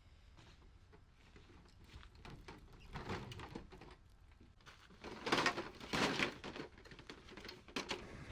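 Handling noise: scattered knocks and rustles from equipment being moved, with a louder rustling stretch about five to six and a half seconds in.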